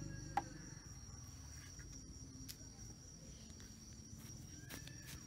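Crickets chirring steadily in one constant high tone, with a single sharp knock about half a second in.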